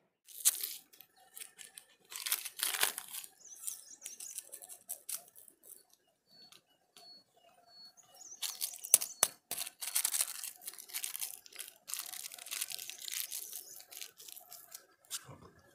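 Rustling and crinkling of packets and tent nylon being handled at close range, in irregular bursts broken by sharp clicks; loudest a couple of seconds in and again from about eight seconds in.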